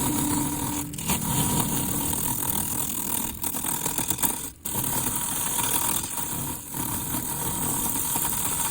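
Wood lathe running with a tool working the spinning plum wood, a dense steady grinding noise with a faint steady whine. It drops out briefly a few times as the cut pauses.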